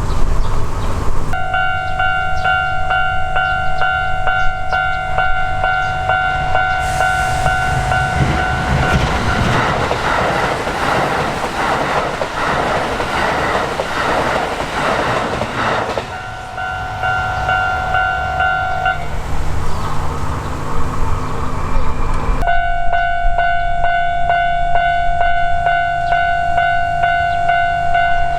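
Japanese level-crossing alarm ringing with a steady repeating electronic tone, starting just over a second in. A Kintetsu Osaka Line train passes through the middle of the stretch, its wheels clattering over the rail joints. The alarm stops briefly about two-thirds of the way in, then starts again.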